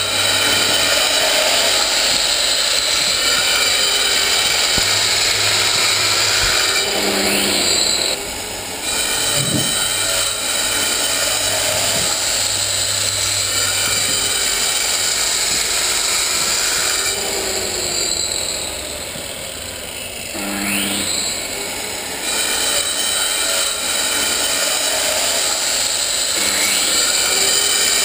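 Angle grinder with a cutting disc grinding into a stone block, a loud steady grinding. Twice it eases off for a moment, then comes back with a rising whine.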